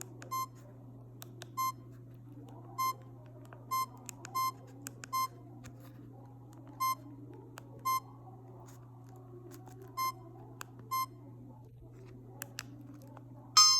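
Samsung GT-E1175T keypad beeps: about ten short identical beeps at uneven intervals as buttons are pressed, over a faint steady hum. A ringtone starts playing at the very end.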